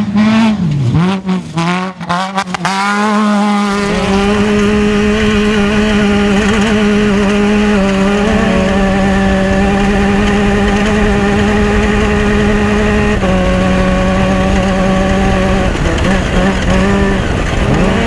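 Off-road race vehicle's engine revving on and off for the first few seconds, then held at a steady high rev, with a slight step in pitch a little past halfway and a few brief dips near the end.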